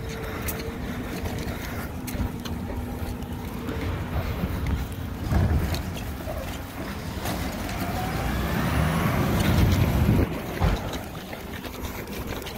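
Garbage truck engine running, building louder with a rising whine toward about ten seconds in, then dropping off suddenly.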